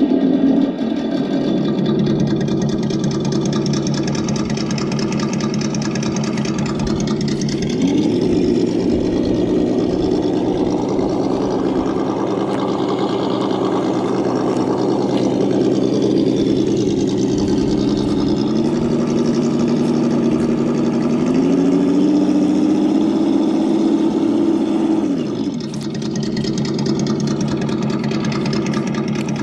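Sense ESS-Dual engine sound simulator in an RC crawler playing a simulated engine through its speaker: idling, then rising in pitch about 8 seconds in, climbing in two further steps, and dropping back to idle about 25 seconds in.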